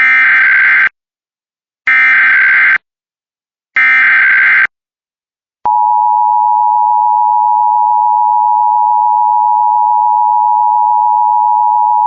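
Emergency Alert System SAME header: three screeching bursts of digital data, each about a second long. About six seconds in comes the EAS two-tone attention signal (853 and 960 Hz together), a steady loud tone that holds to the end.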